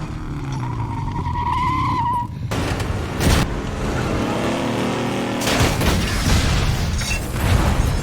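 Big rig truck sound effects: a tire squeal about a second in, a heavy crash about three seconds in, the truck's engine revving with its pitch rising and falling, then a second crash followed by a heavy low rumble.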